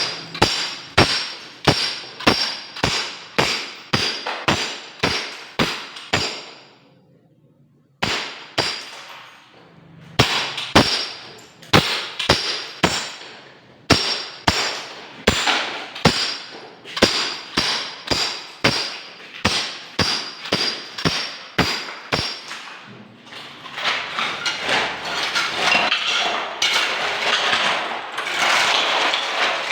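Steady hammer blows, about two a second, each with a short metallic ring, with a brief pause about seven seconds in. From about 23 seconds on the blows stop and a continuous rough scraping noise takes over.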